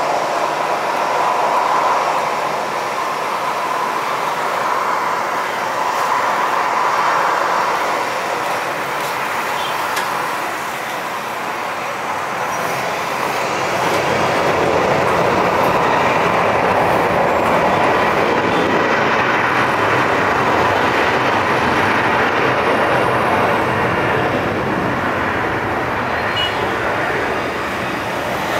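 Boeing 737-800's CFM56 jet engines running while the airliner taxis onto the runway and lines up. A steady whine early on grows fuller and louder from about halfway through.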